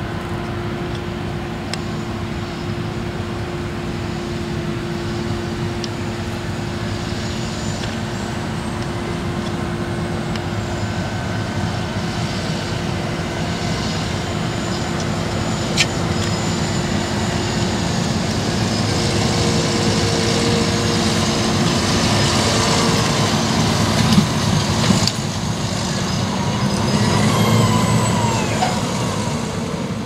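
New Holland T7 tractor's diesel engine running as it drives across the field with a grain trailer, slowly growing louder as it approaches, with a few sharp knocks. About five seconds before the end the sound changes suddenly to a New Holland CR8.90 combine harvester at work.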